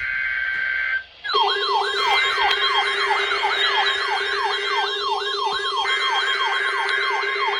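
Weather radio alarm going off for a National Weather Service warning-alarm test. A steady tone sounds for about a second and cuts off. Then a siren-like wail starts, sweeping up and down about two and a half times a second over a steady lower tone.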